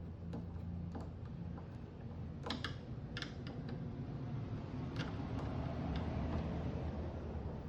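Scattered small clicks and taps of a hand screwdriver and plastic tail-light parts being handled as the screws are worked out by hand, the sharpest a few seconds in. A low steady hum runs underneath.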